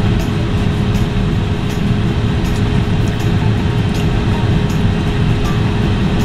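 Steady, loud rumbling hiss of a car cabin's background noise, with a constant hum and faint light clicks every so often.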